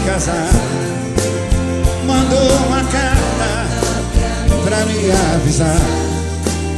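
Live band music with singing over a steady drum beat, the audience singing along.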